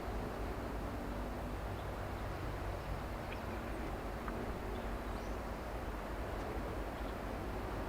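Steady low rumble of an excavator's diesel engine working some way off, with a few faint short bird chirps over it.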